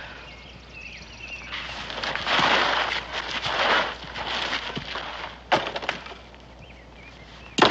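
Wood snapping and splintering, with a rough crackling stretch in the first half, a sharp crack about halfway through and a louder crack near the end.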